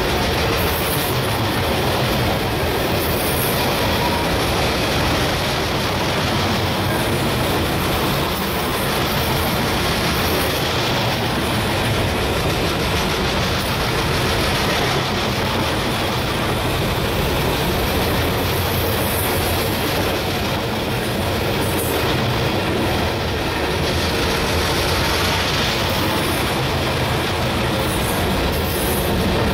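Loaded coal hopper cars of a freight train rolling past at close range: a steady, loud rumble and rattle of steel wheels on rail that does not let up.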